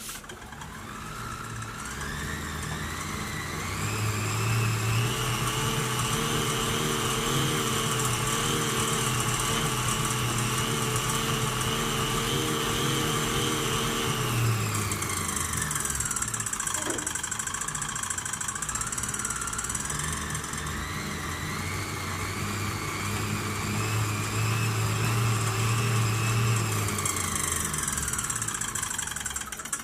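Cycleops Fluid 2 fluid turbo trainer spinning with a bike's rear wheel, giving a whine that rises as it speeds up, holds steady, falls away about halfway through as it slows, then rises and falls once more. This is the annoying noise the trainer has recently started making.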